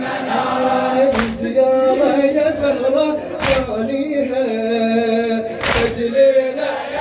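Shia latmiya mourning chant: men's voices singing a drawn-out line in chorus, with three unison chest-beats (latm) landing about every two and a quarter seconds.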